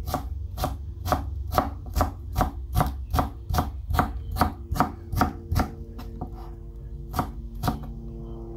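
Broad-bladed kitchen knife chopping crunchy watermelon rind into thin strips on a plastic cutting board: a steady run of sharp knocks, about two and a half a second, that stops about six seconds in, followed by two more knocks near the end.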